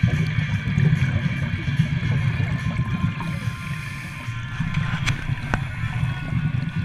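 Underwater noise through a camera housing: a low, churning rumble of scuba divers' exhaled regulator bubbles, with two sharp clicks a little past halfway.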